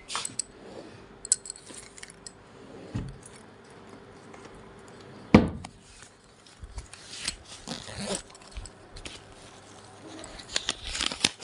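Scattered knocks and rustling from things being handled, with one sharp thump about five seconds in and busier rustling near the end, over a faint steady hum.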